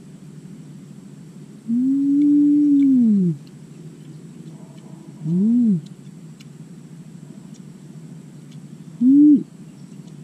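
A woman's closed-mouth "mmm" hums of enjoyment while eating grilled snails: one long hum that rises and then falls, starting about two seconds in, followed by two short ones. Faint clicks from the snails can be heard between them.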